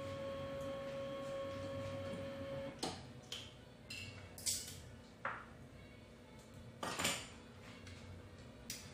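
A steady tone held for about three seconds, then a string of sharp clicks and clinks, about seven, as small hard objects are handled and set down on a lab counter.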